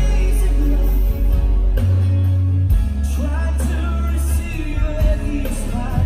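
Live band playing through a PA: a man singing into a microphone over heavy bass guitar and acoustic guitar, the vocal line clearest in the second half.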